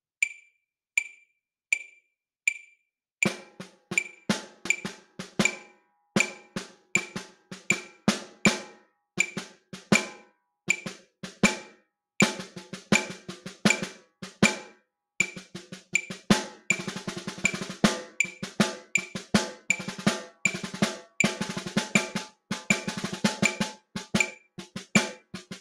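Snare drum played with wooden drumsticks, an articulation warm-up: four evenly spaced sharp clicks sound alone, about one every three-quarters of a second, and the same clicks keep the beat throughout. About three seconds in, the strokes begin in steady groups of accents and taps. From about twelve seconds in they grow into faster, denser patterns, and from about sixteen seconds the snare wires rattle thickly under rapid strokes.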